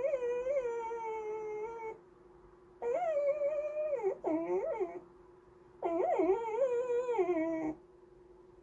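Black goldendoodle puppy whining in long, sing-songy, wavering whines: three of them, each about two seconds, the second breaking into shorter up-and-down whimpers. It is begging for treats.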